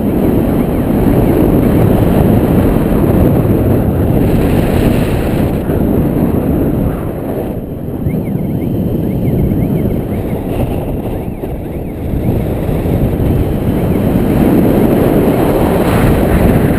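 Wind buffeting the microphone of a paraglider pilot's harness-mounted camera in flight: a loud, rough rumble that swells and eases.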